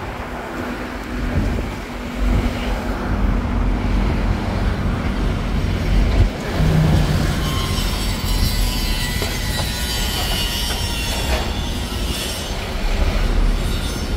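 Open-top double-decker sightseeing bus on the move in city traffic: a steady low engine rumble under road and wind noise, with a thin high squeal in the second half.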